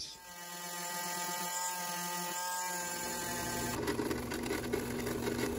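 Benchtop drill press motor spinning up and running with a steady whine, and from about four seconds in a rougher, scratchy cutting noise as the spinning countersink bit works the edge of the epoxy-filled hole in a phenolic router insert plate.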